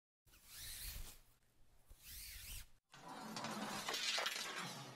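Edited intro sound effects: two short whooshes with a sweeping pitch, about a second apart, then a louder, steadier rushing noise from about three seconds in.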